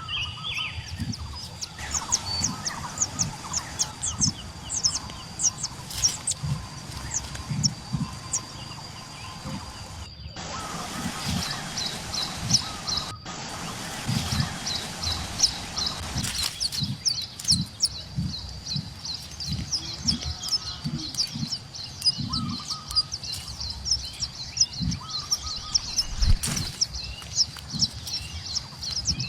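Small birds chirping in rapid high-pitched series, several chirps a second, with low thumps and bumps throughout.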